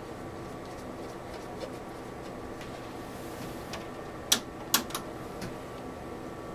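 Three sharp clicks in quick succession about four and a half seconds in, from the rotary time-per-division switch of a Tektronix 2215 oscilloscope being turned a few detents. A steady low bench hum runs underneath.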